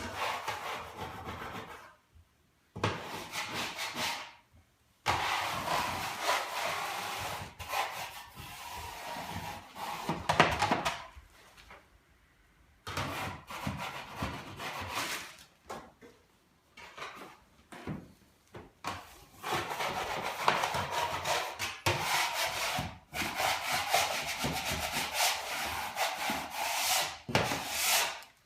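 Wood being worked by hand with rubbing, saw-like strokes, in bouts of a few seconds separated by short pauses.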